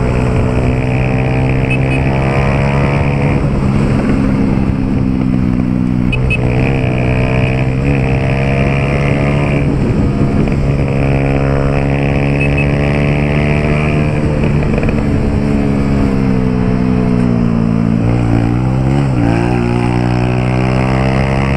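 Honda CG Titan 150's single-cylinder four-stroke engine running through a Pro Tork aftermarket exhaust at steady riding throttle. The engine note drops briefly about six seconds in, then dips lower and climbs back near the end.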